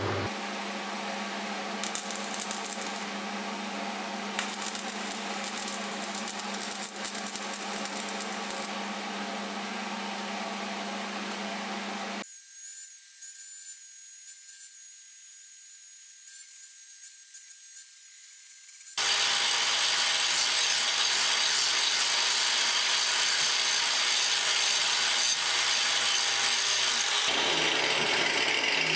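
Abrasive power tool working the steel head of a hammer, in edited stretches: a steady hum with hiss, then a faint high hiss for several seconds, then a louder steady grinding run from about two-thirds of the way in.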